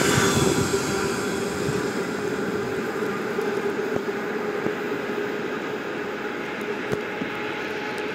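A train moving away, its running noise fading steadily, with a steady hum and a few faint clicks of wheels over rail joints.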